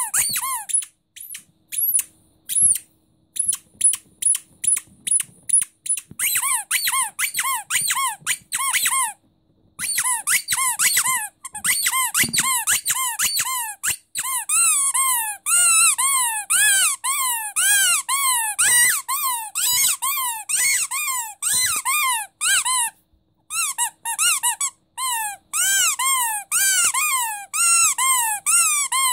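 A squeaky rubber starfish dog toy being squeezed by hand over and over. It gives runs of quick squeaks, each rising and then falling in pitch, broken by a few short pauses.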